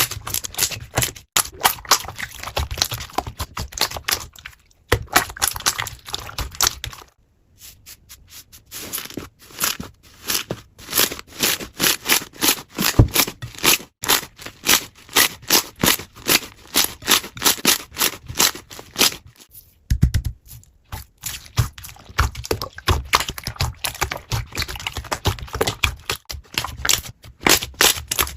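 Slime being squeezed and worked by hand: a dense, irregular run of sticky clicks and crackles as trapped air pops, with a couple of short pauses.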